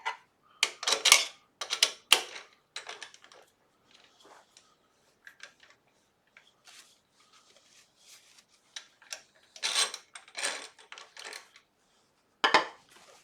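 Handling clatter at a wood lathe chuck: paper towel rustling and a wooden bowl knocking against the metal chuck jaws as it is set in place, a run of irregular clicks and short scrapes with quiet gaps between.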